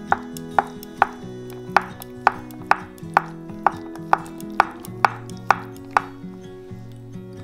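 A kitchen knife chopping food on a cutting board, about two even strokes a second, stopping a little before the end. Soft background music runs underneath.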